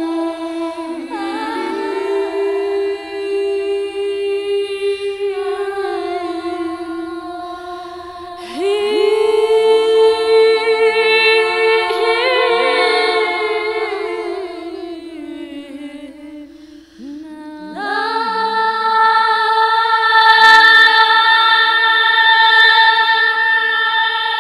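Wordless sung vocals in layered harmony, holding long notes in three swelling phrases. The last and loudest phrase begins about two-thirds of the way through.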